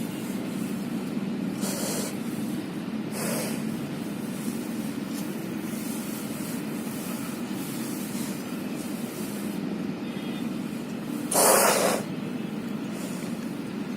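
A resting cow breathing heavily through its nose: two soft noisy exhales in the first few seconds, then one loud, short blow about eleven seconds in. A steady low hum runs underneath.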